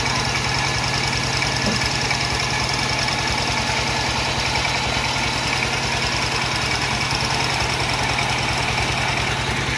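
Small stationary engine on a soil-boring rig setup running steadily at an even speed with a fast, low putter, powering the drilling for soil sampling.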